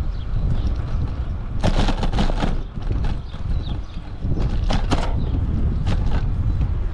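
Wind rumbling on a bicycle-mounted camera's microphone. Two bursts of rattling clatter, about two seconds in and again about four and a half seconds in, as the bicycle rolls over the railroad tracks and bumps in the path.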